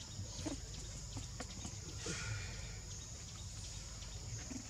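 A steady high-pitched insect drone, with a low hum beneath it and a few faint short clicks; a brief hiss about two seconds in.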